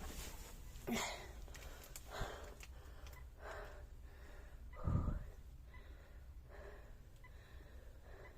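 A person breathing audibly, a series of short breaths about a second apart, one louder than the rest about five seconds in.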